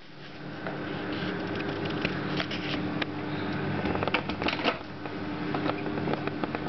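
A dishwasher door being unlatched and pulled open, its brightest clicks about four and a half seconds in, among scattered handling clicks and rustles over a steady low hum.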